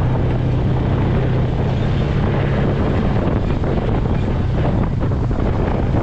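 Side-by-side utility vehicle running over a dirt track, its steady engine hum easing off about a second and a half in, with wind rumbling on the microphone.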